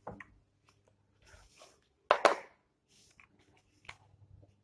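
Whiteboard eraser wiping the board in short strokes, then a marker scratching as he writes, with one louder short rubbing noise about two seconds in.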